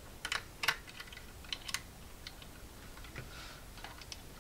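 Light, irregular metal clicks of an Allen key and wrench working the screw of a 3D printer's extruder-carriage wheel as it is tightened down.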